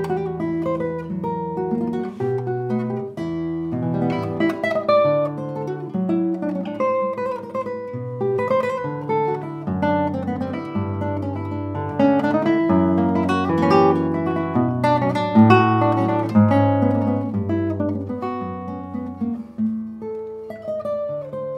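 Solo classical guitar, a 2020 cedar double-top built by Dragan Neshic, played fingerstyle: plucked melody and chords over a moving bass line, swelling louder about halfway through.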